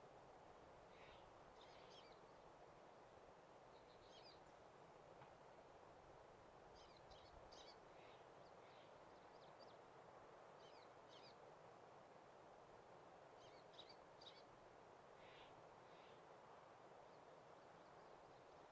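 Near silence, with a steady soft hiss and faint, distant bird calls: short high chirps in small clusters every second or two.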